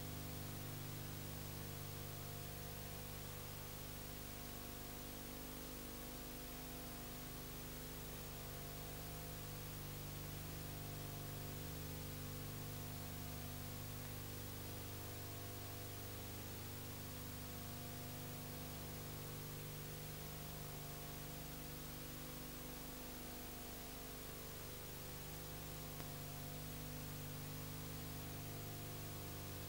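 Steady electrical mains hum with several overtones under a constant hiss, and nothing else: the empty sound track of a silent home-movie transfer.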